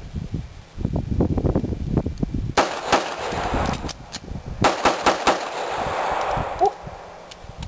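Pistol shots: two quick shots, a pause of about a second and a half, then a faster string of shots, each string ringing on afterward. The pause between the strings is the reload of the FAST drill, two head shots then four body shots.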